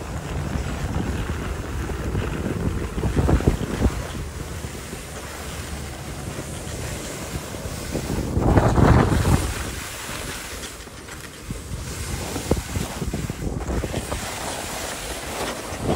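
Skis sliding and carving on groomed snow, a steady hiss and scrape, with wind rushing over the microphone during the downhill run. The noise swells about three seconds in and again through the middle.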